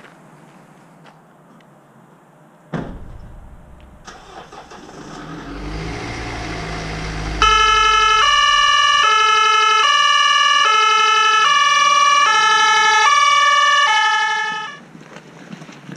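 Ambulance engine starting with a sudden low rumble about three seconds in and running, growing louder. About halfway through, a German two-tone siren (Martinhorn) sounds, switching between two pitches every second or so for about seven seconds, then cuts off suddenly.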